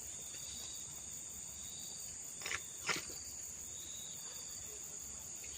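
Steady high-pitched chorus of crickets or similar insects, with a fine rapid pulsing. Two brief rustling knocks come about two and a half and three seconds in.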